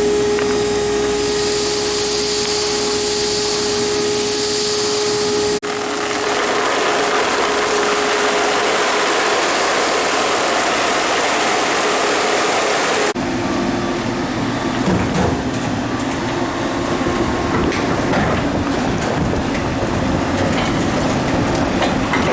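Steady, loud machinery noise: a motor whine over rushing air at first, then changing abruptly twice to other steady running noise with more low rumble near the end.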